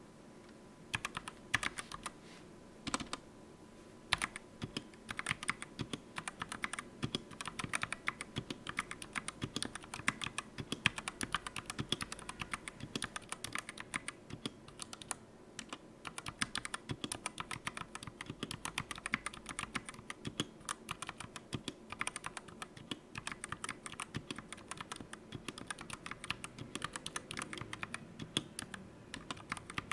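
Typing sound test on a Digital Alliance Meca 6x Plus 65% mechanical keyboard with red linear switches: a few separate keystrokes about a second in, then fast continuous typing.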